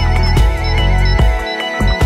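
Electronic background music with a heavy, pulsing bass and a warbling synth line that settles to a steady tone partway through.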